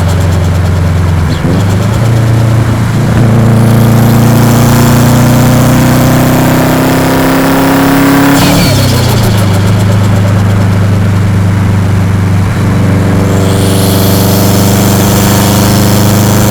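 Subaru Impreza WRX's EJ207 turbocharged flat-four engine running under load. Its pitch climbs slowly for several seconds, drops sharply about eight seconds in, then holds steady at a lower pitch.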